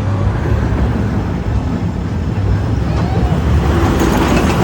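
Roller coaster train rumbling along its track: a loud, steady rumble that grows louder and hissier from about three seconds in.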